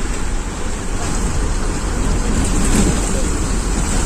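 Ashok Leyland Viking bus running on the road in heavy rain: a steady engine drone with rain and road noise, swelling slightly about two and a half seconds in.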